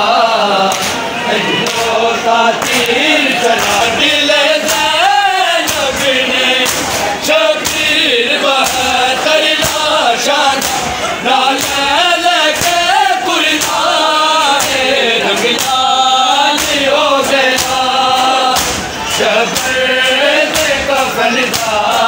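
A group of male mourners chanting a noha, a Shia lament, in unison. Frequent sharp slaps of matam, open hands striking bare chests, cut through the singing.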